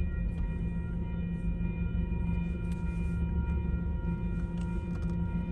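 Railroad crossing warning bell ringing steadily over the low, steady rumble of a train.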